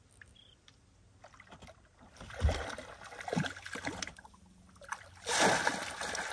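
A hooked trout splashing at the surface beside a boat: a few short splashes and low thumps from about two seconds in, then a loud burst of thrashing splashes near the end as it is scooped into a landing net.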